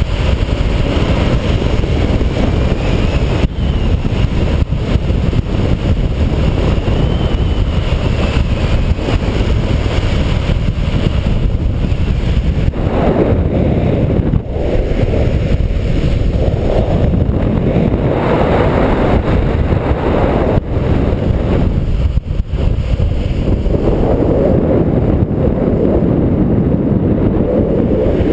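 Wind rushing over a handheld pole-mounted camera's microphone during a fast longboard run, mixed with the steady rolling rumble of the longboard's wheels on asphalt.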